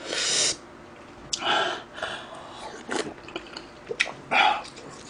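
Close-miked eating of instant ramen: a few short slurps of noodles with small wet mouth clicks between them.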